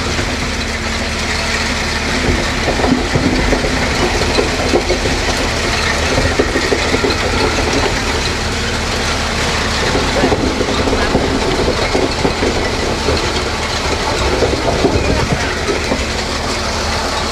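Concrete truck machinery running: a steady low drone with a constant hum and dense, irregular clattering and knocking.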